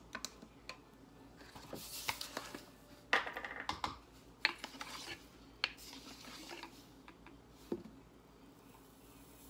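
Scattered clicks and small metallic clinks of shotshell reloading tools and components being handled on a bench, with a short rattling clatter that rings briefly about three seconds in.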